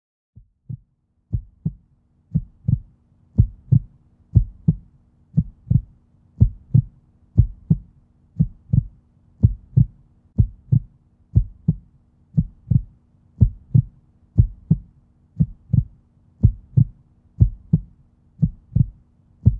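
Heartbeat sound: paired low thumps, lub-dub, about once a second, fading in over the first few seconds, with a faint steady hum beneath.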